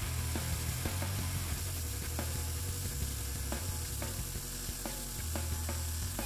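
Electric arc welding: the arc crackling and sizzling irregularly over a steady low hum.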